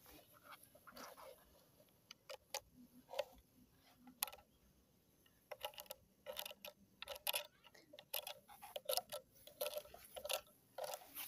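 Faint, irregular clicks and taps, a few at first and then coming in quick clusters from about halfway through.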